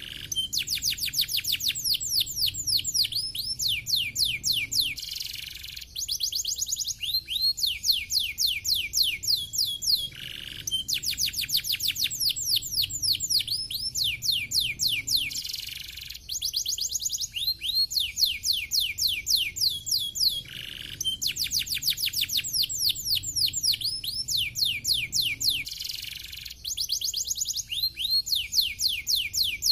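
Domestic canary singing continuously: fast trills of quick downward-sweeping whistled notes, phrase after phrase with only brief breaks between them.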